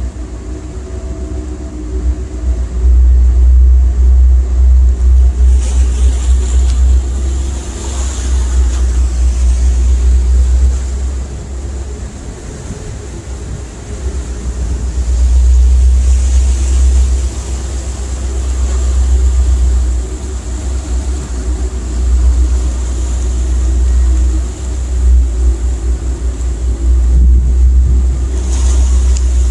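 Tugboat's engine running, with a heavy low rumble that swells and fades irregularly.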